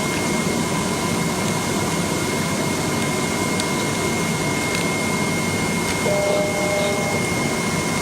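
Steady running noise of a machine, with a constant high whine over it. About six seconds in, a short pair of tones sounds for about a second.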